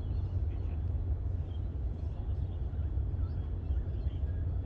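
Outdoor ambience: a steady low rumble with faint, scattered bird chirps above it.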